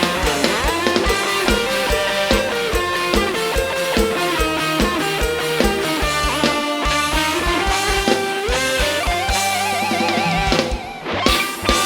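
Instrumental passage from a live mor lam band: a plucked guitar melody over a drum kit with a regular kick drum. Near the end comes a loud cymbal-like hit, followed by a held, wavering note.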